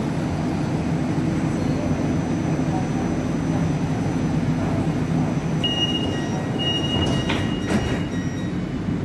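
Metro train's door-closing warning beeping, starting about six seconds in, followed by the sliding doors shutting with two knocks about half a second apart, over the steady low hum of the stationary train.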